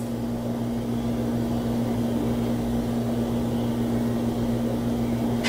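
Room tone: a steady low hum with an even background hiss and no distinct event.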